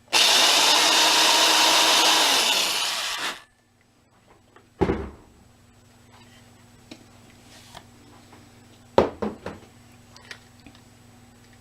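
Power drill boring into the head of a metal rivet for about three seconds, then stopping suddenly, one of several short stabs to wear the rivet's top rim thin. A few knocks follow, one about five seconds in and a couple more close together a few seconds later.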